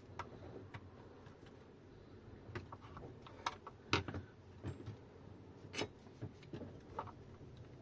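Handling of an e-bike battery pack's plastic case: scattered light clicks and taps of plastic and small parts, the sharpest about four seconds in and again near six seconds.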